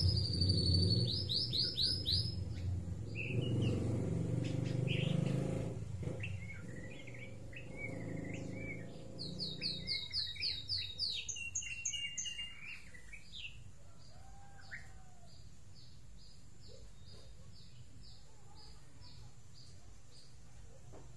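White-rumped shama (murai batu) singing in bursts of fast, repeated high notes and chirps. The song is loudest at the start and again about ten seconds in, over a low rumble that fades out around then. Near the end it gives a faint, even series of short chirps, about two a second.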